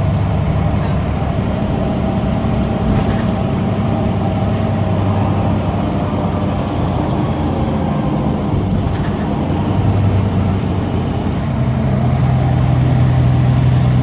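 Mercedes-Benz O530G Citaro articulated bus heard from inside the cabin, its diesel engine droning steadily under way with a blown exhaust. About three-quarters of the way through, the engine note steps up higher and louder.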